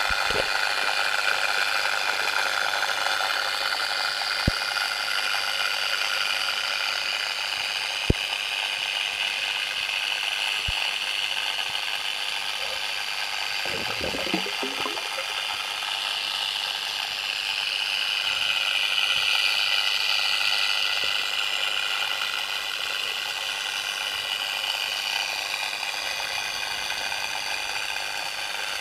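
Steady mechanical whirring hiss, with a few sharp clicks about four, eight and eleven seconds in and a brief low rumble near the middle.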